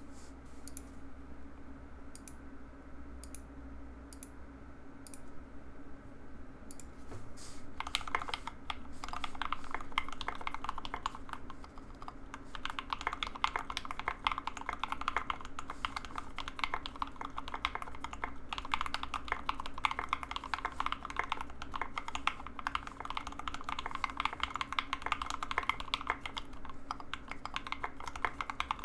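Mechanical keyboard with Everglide Water King V3 linear switches, lubed with Krytox 205g0 and filmed, on a carbon fibre plate: single keystrokes spaced apart at first, then fast continuous typing from about eight seconds in.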